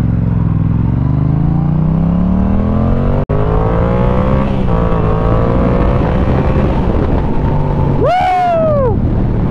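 2022 Yamaha R7's parallel-twin engine through a Yoshimura exhaust, pulling away and accelerating with its pitch rising steadily. About four and a half seconds in the pitch steps down at an upshift, then climbs again more slowly and settles.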